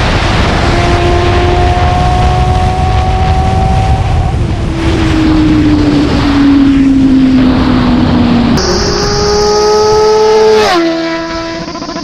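Suzuki GSX-S750's inline-four engine pulling hard at highway speed, with wind rushing over the microphone. Its pitch climbs, drops at an upshift about four and a half seconds in, then sags slowly. In a second shot from the roadside a motorcycle comes closer with its pitch rising, then falls sharply in pitch and level as it passes, near the end.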